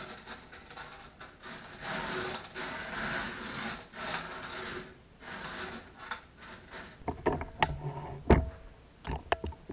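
Small aquarium stones being spread and levelled by hand across the bottom of a glass tank: gravel rustling and scraping in waves, then a few sharp clicks and knocks near the end.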